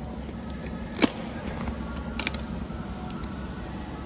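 A few sharp clicks and snaps from a snap-off utility knife being handled and worked against the plastic packing strap and tape on a cardboard TV box. The loudest click comes about a second in, and another pair a little after two seconds.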